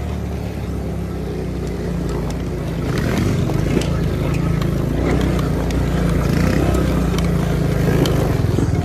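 Four-wheeler (ATV) engine running steadily while riding, a little louder from about three seconds in, with scattered light clicks and knocks.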